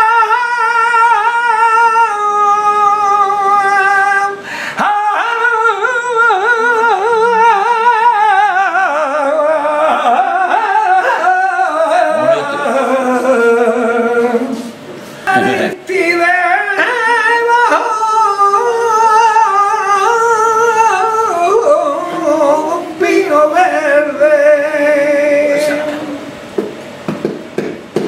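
A man singing flamenco cante, drawing out long melismatic lines with a wide vibrato. He breaks off briefly about four and a half seconds in and again around the middle.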